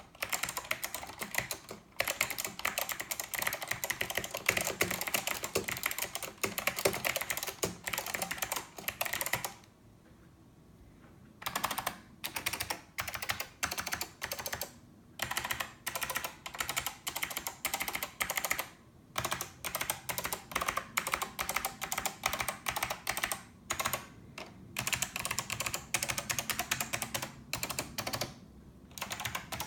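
Fast typing on a Northgate OmniKey 102 mechanical keyboard with clicky Alps SKCM Blue switches, a dense run of sharp key clicks with a pause of about two seconds about ten seconds in and a shorter one near the end.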